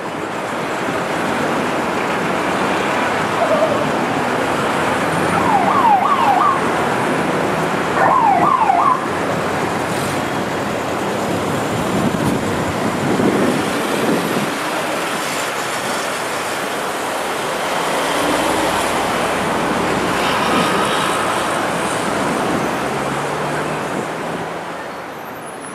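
City street traffic noise from passing cars and engines, with two short warbling siren blasts a few seconds in, each lasting about a second.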